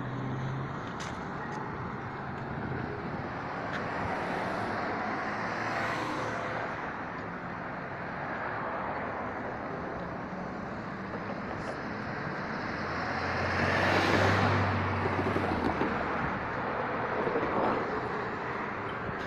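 Road traffic going by on a multi-lane street, vehicles passing one after another, the loudest swelling past about fourteen seconds in.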